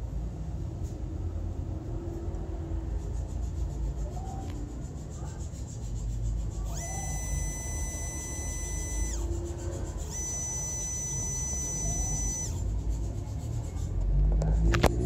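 Oriental Motor ASM66AA-H50 closed-loop stepper motor with a 50:1 harmonic gearhead whining with several steady high tones during two runs of about two and a half seconds each, a second apart, over a steady low rumble. A sharp click comes near the end.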